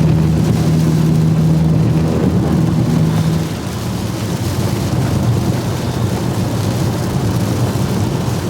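Car being driven, with engine and road noise heard from inside the cabin. A steady hum stops about three and a half seconds in.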